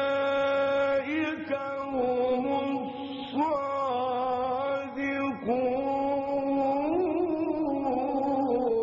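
A man reciting the Quran in the melodic, drawn-out mujawwad style. He holds long sustained notes and moves to a new pitch every second or two through short ornamented turns.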